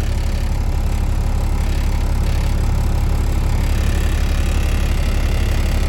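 Semi truck's diesel engine idling, a steady low drone with a fast, even pulse.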